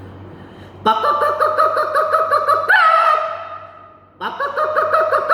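A man imitating with his voice a hen's egg-laying cackle: a quick run of clucks, then a long drawn-out call that falls away, with a second run of clucks starting near the end.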